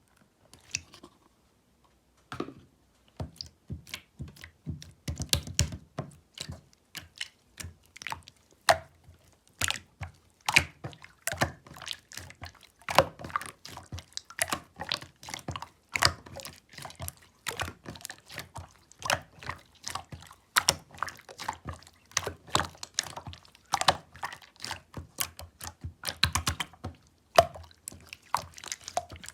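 Slime being squished and kneaded by hand, giving a dense stream of irregular sticky pops and clicks. It starts with a few clicks, then runs continuously from about two seconds in.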